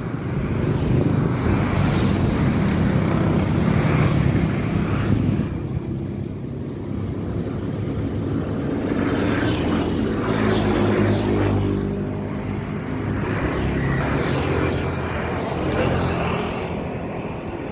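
Road traffic passing: vehicle engines going by, a low rumble that swells and fades several times.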